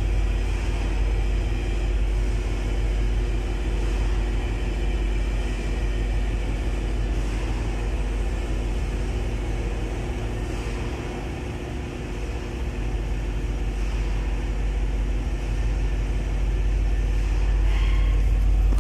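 Steady low drone of running engine-room machinery, with a constant hum.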